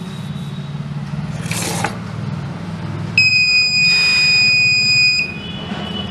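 Piezo buzzer on an Arduino gas-sensor air-quality monitor sounding one steady, high-pitched beep for about two seconds, starting about three seconds in: the alarm for a critical gas level.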